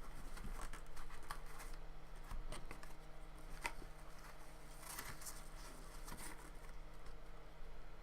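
Trading cards and their plastic holders being handled, with irregular rustling and light clicks.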